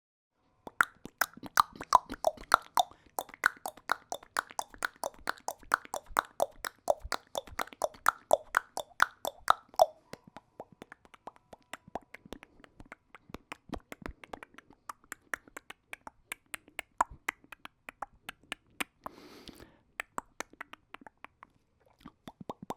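A man making rapid mouth clicks and pops, several a second. For the first ten seconds the pops have a hollow pitch that shifts up and down from pop to pop; after that come thinner, sparser clicks, with a short breathy puff near the end.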